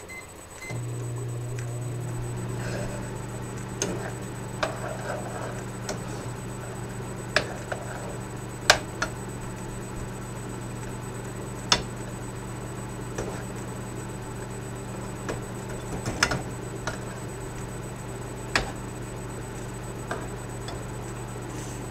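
Microwave oven starting up about a second in and running with a steady hum. Over it, a metal spoon scrapes and clacks against a frying pan as chicken alfredo is stirred, giving sharp clicks every few seconds.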